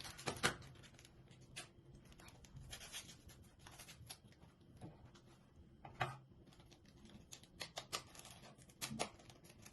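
Faint, irregular scraping and light clicks of kitchen utensils and containers being handled while cake batter is made.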